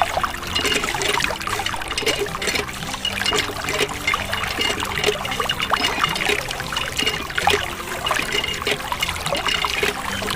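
Thin stream of water trickling and splashing from a miniature tubewell into a small bucket and pond, with a faint steady low hum underneath.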